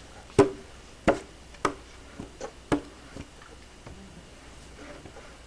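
Hands pressing and tapping a glued paper picture down onto a thin wooden board on a tabletop: a string of sharp, irregular knocks over the first three seconds, then quiet.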